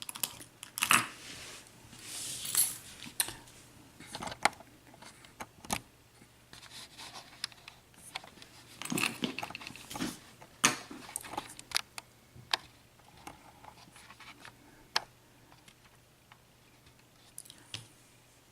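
Small metal pin-tumbler pins and parts from a disassembled Master ProSeries 6830 padlock being handled and sorted: irregular light clicks, taps and clinks, some in quick clusters.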